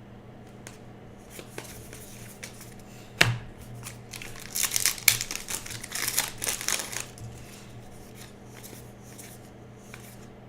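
Baseball card pack wrappers being torn open and crinkled by hand, with a dense run of crackling from about four to seven seconds in. A single sharp tap comes just before it. A steady low electrical hum runs underneath.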